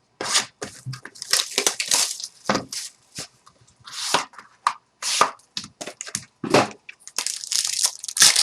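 Trading-card packaging being torn open and handled: a run of irregular crackling, crinkling and tearing noises.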